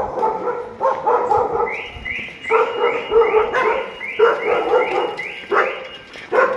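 Street dogs barking repeatedly in short bouts.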